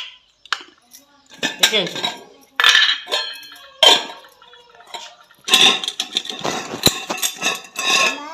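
A steel spoon scraping and clinking against a steel kadai as rice is stirred and scooped, in irregular bursts with short metallic rings. A steel tiffin box clinks near the end.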